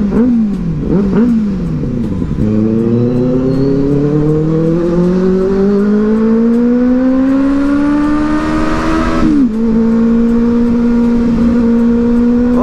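Loud Benelli TNT 600i inline-four engine with an aftermarket exhaust, heard from the rider's seat: a few quick throttle blips rising and falling, then a long pull with the engine note climbing steadily for several seconds. About nine seconds in the note drops at a gear change and then holds steady at cruise, with wind rushing louder near the top of the pull.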